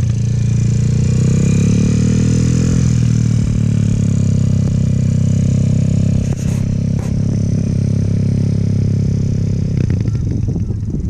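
Motorcycle engine running, its pitch rising as it revs during the first few seconds, then holding steady. Two brief clicks come about six and a half and seven seconds in.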